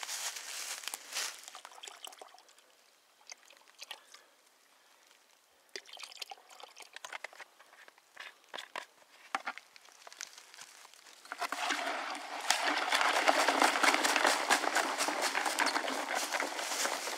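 Soapy water and ore in a plastic bucket being churned hard by hand to whip up flotation froth: a loud, continuous sloshing and splashing that starts about eleven seconds in. Before that, only a brief pour and scattered quiet handling clicks.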